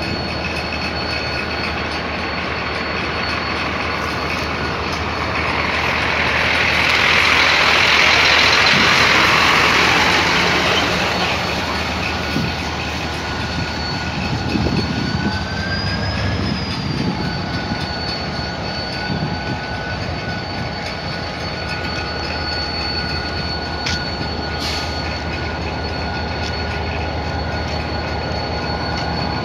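EMD DDM45 diesel-electric locomotive approaching, its 20-cylinder two-stroke diesel running under a steady high wheel squeal that bends briefly upward about halfway through. A louder rush of noise swells for a few seconds about a quarter of the way in.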